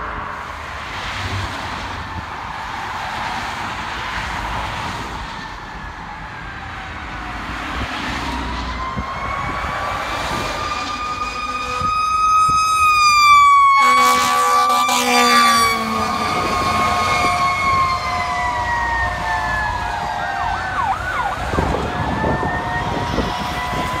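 Fire engine's Federal Q mechanical siren winding up to a high, peaking wail, with a blast of its air horn about halfway through, the loudest moment. Near the end the siren winds back down. Road traffic noise comes before the siren builds.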